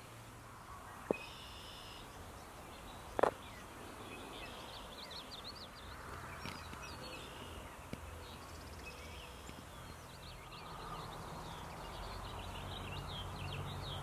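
Outdoor ambience with several birds chirping and singing over a low rumble, and two sharp clicks about one and three seconds in, the second louder.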